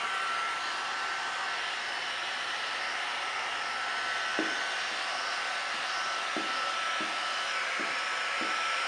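Handheld heat gun blowing steadily on vinyl wrap film, its air rush carrying a faint steady whine. A few short soft knocks come in the second half.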